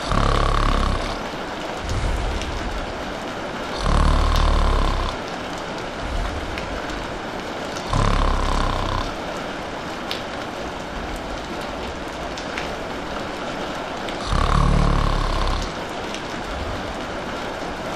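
Steady rain hiss with a person snoring over it. There are four loud, low snores, each about a second long and mostly about four seconds apart, and each is followed by a softer breath out. The pause between snores is longer around the middle.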